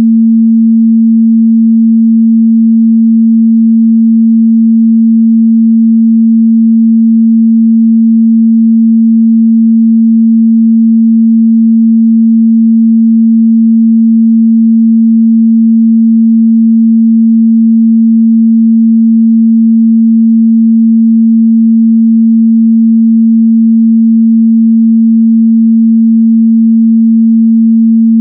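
Steady, loud 226 Hz sine-wave test tone, a single pure low hum held unchanged, used to check how speakers and headphones reproduce the mid-bass.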